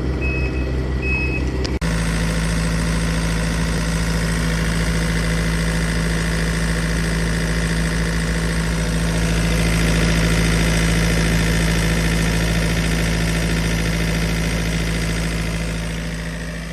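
Yanmar diesel engine of a Komatsu PC45MR-3 mini excavator running, with a high alarm beeping at an even pace for the first couple of seconds. After a sudden break the engine runs on steadily, getting louder around the middle and easing off near the end.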